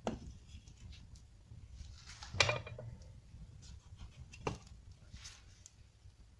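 A few separate knocks and clanks from handling a wood-burning fireplace while it is being lit, over a low steady rumble; the loudest knock comes about two and a half seconds in.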